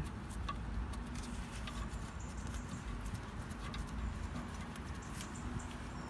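Faint small clicks and scratching of gloved fingers threading a brake caliper's slider bolts in by hand, over a low steady background rumble.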